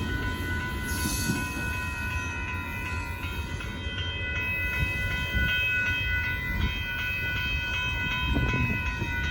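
Amtrak passenger train rolling slowly into a siding: a low, steady rumble of the cars, with a steady high-pitched ringing tone held over it.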